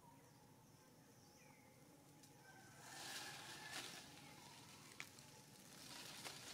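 Near silence outdoors: faint bird chirps, with a brief rustling hiss about three seconds in and a single click a little later.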